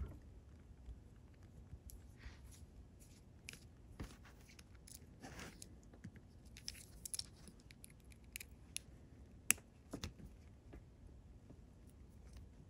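Faint, scattered clicks and light scrapes of a small screwdriver turning tiny screws out of the plastic frame of an HO-scale pancake motor, with the plastic parts clicking as they are handled; the sharpest click comes about nine and a half seconds in.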